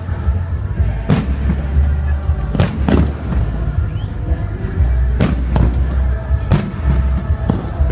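Festive fireworks salute: about six sharp bangs of shells bursting, irregularly spaced a second or two apart, over a constant deep rumble.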